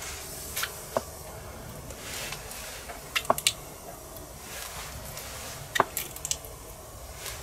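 Short sharp clicks and taps in three small clusters, about one, three and six seconds in, as ketchup is squeezed from a plastic squeeze bottle onto a metal spoon over a cast-iron Dutch oven.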